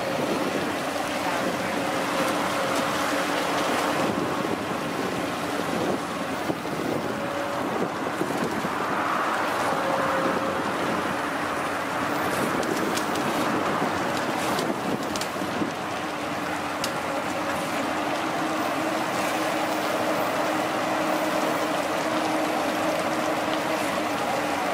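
Long-reach excavator running: steady engine and hydraulic noise with a steady whine that fades in and out.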